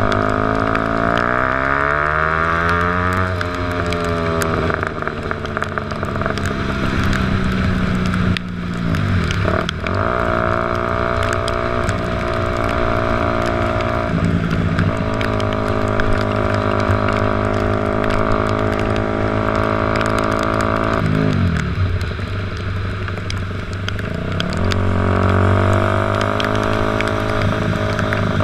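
Motorcycle engine running under way, its pitch climbing and dropping as the rider accelerates, shifts and eases off, and holding steady through a long middle stretch, with a steady rush of wind and road noise.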